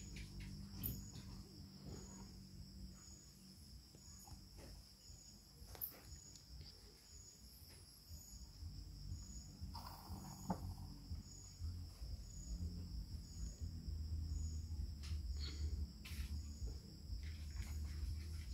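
Crickets chirping: a steady high trill with evenly spaced chirps. A few faint clicks and knocks come through, and a low rumble grows stronger in the second half.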